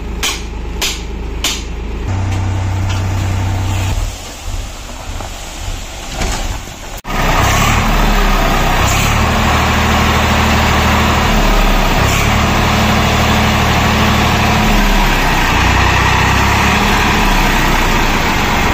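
A steel shovel scrapes and strikes sand in a tractor trolley several times. From about seven seconds in, a tractor's diesel engine runs loudly and steadily close by, with a strong hiss over it.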